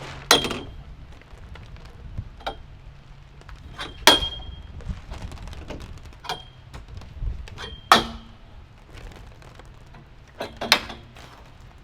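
Metal cane on a ninja cane-lane obstacle clanking into its slots as the climber swings along it: about five sharp clanks with a brief metallic ring, roughly every two seconds, with lighter knocks between, over steady rain.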